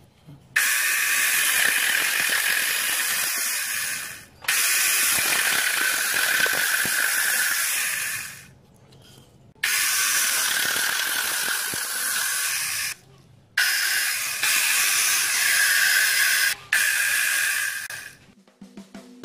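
Homemade chainsaw driven by a 775 DC motor, running with a high whine and hiss as its chain cuts into a wooden branch. It runs in five stretches of a few seconds each, each starting and stopping abruptly.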